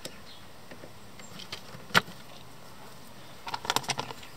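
A single sharp click about two seconds in, then a quick cluster of small clicks and rattles near the end: a flat screwdriver twisting out the plastic plug fasteners of a car's footwell trim panel.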